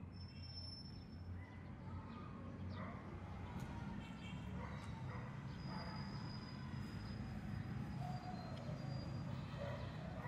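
Outdoor ambience: a steady low rumble with faint distant voices and a few thin high tones.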